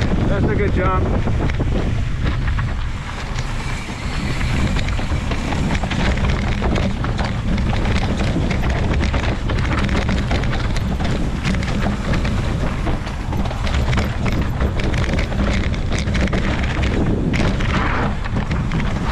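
Wind rumbling on the microphone over the clatter of a mountain bike riding a rocky dirt trail, with many short knocks and rattles as the tyres hit rock and dirt.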